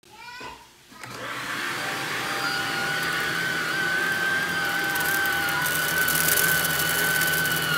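Cordless stick vacuum cleaner starting up, its motor rising to a steady high whine about a second in as it is run over a shag rug. From about four seconds in, grains of rice are sucked up through the brush head and wand with a crackling rattle.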